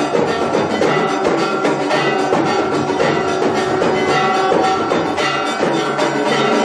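Temple aarti music: bells and percussion struck rapidly and continuously, with ringing tones held over the beats.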